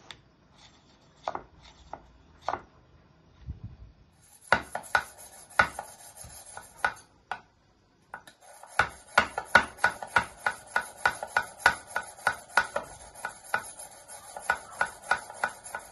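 Sharpening stone drawn by hand along the edge of a steel kitchen knife held upright, in quick, even scraping strokes about two to three a second. A few faint strokes come first, the run picks up about four seconds in, pauses briefly, then resumes.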